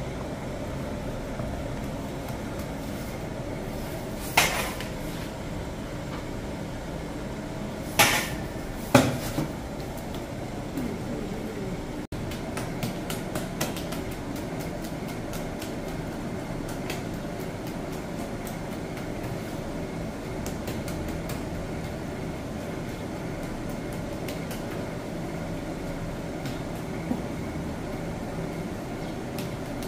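Steady mechanical hum in a sangak bakery, broken by three sharp metallic clanks about four, eight and nine seconds in, with a few lighter clicks afterwards.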